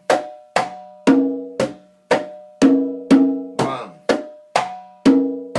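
Conga played by hand in a steady son montuno tumbao, about two strokes a second, with ringing open tones that sustain a clear pitch between strokes.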